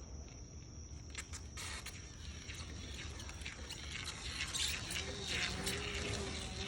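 Foam adhesive gun being triggered to lay glue on ICF blocks: clicks about a second in, then a stretch of hissing with sharp ticks. A steady high insect drone runs underneath.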